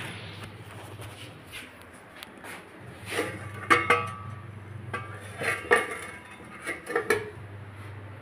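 A metal spatula clanking and scraping against a metal kadai while stirring vegetables: a run of sharp clinks between about three and seven seconds in, over a low steady hum.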